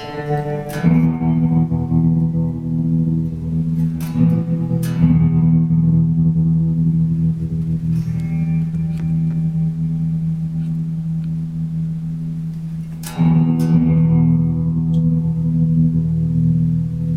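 Electric guitar played through a Montreal Assembly Rand() random-tremolo pedal. A few chords are struck and left to ring: about a second in, twice around four to five seconds, and again near thirteen seconds. The pedal chops their sustain in an uneven, glitchy flutter.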